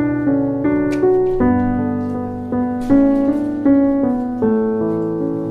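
Background piano music: a slow melody of single notes and chords, each struck note dying away.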